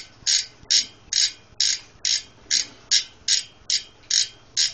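Cinema 333 BMX cassette hub's pawls ratcheting in short, evenly spaced buzzing bursts, about two a second.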